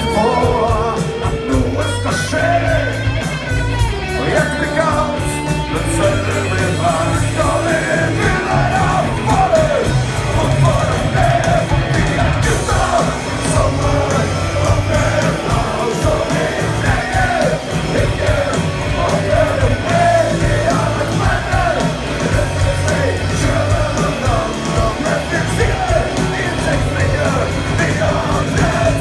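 Live rock band playing loud: drums, electric guitar and bass under a lead vocalist who sings and shouts the melody, heard from the middle of the audience.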